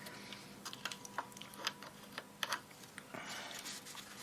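Small metal hand tools being picked up and handled at a workbench, aviation snips among them: scattered light clicks and taps at irregular intervals, with a brief soft rustle a little after three seconds. A faint steady hum runs underneath.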